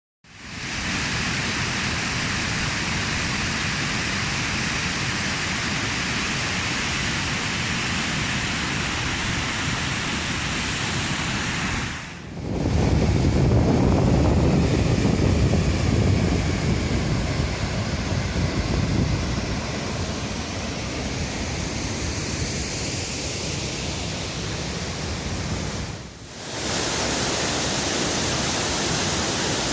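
Rushing water of a waterfall: a steady, even noise that breaks off briefly twice, about 12 and 26 seconds in. The middle stretch is louder and deeper.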